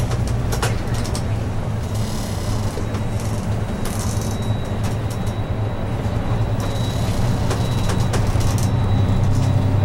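Airport apron bus driving across the ramp, heard from inside the cabin: a steady low engine drone with scattered light rattles and clicks.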